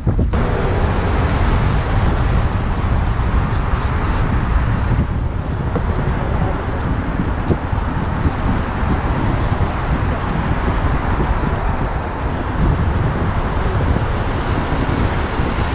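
Steady wind noise on a camera microphone carried on a moving electric unicycle, over the sound of road traffic.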